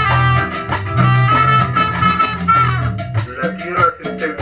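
Band rehearsal music, recorded from the room: an instrumental passage with a bass line and steady drum strokes under a long held high lead note, which gives way to shorter melodic notes about three seconds in.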